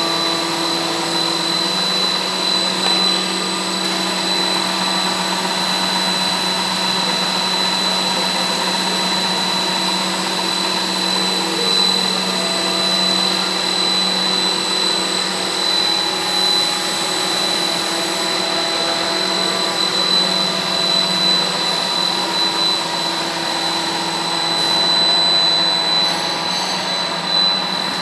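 LLDPE pipe extrusion line running: a steady machine drone from the extruders and their motors, with a constant high whine over a lower hum.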